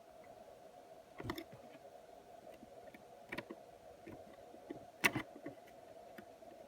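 A faint steady hum of electrical bench equipment, with sharp clicks of tools handled on the workbench about a second, three seconds and five seconds in, the last the loudest.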